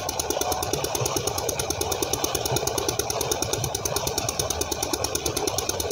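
Tubewell pump engine running with a fast, even knocking beat, under the rush of water gushing from the outlet pipe and splashing into the concrete tank.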